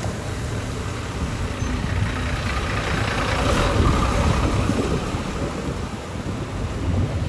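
Large road vehicle passing close on wet asphalt: engine and tyre hiss swell to a peak about four seconds in, then fade.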